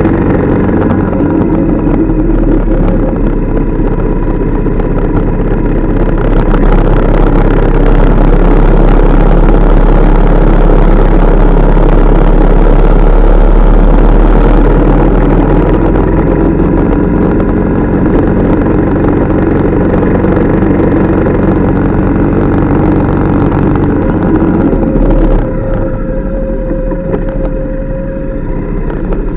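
Motorcycle engine running under way, with heavy wind noise on a microphone mounted low by the front wheel. About 25 seconds in the sound eases off and the wind drops away, leaving a steadier engine note.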